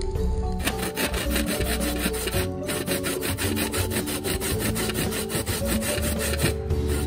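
Coconut flesh being grated by hand on a flat stainless-steel grater, rasping in rapid even strokes of about five a second, with two short pauses. The coconut is being grated to make coconut milk.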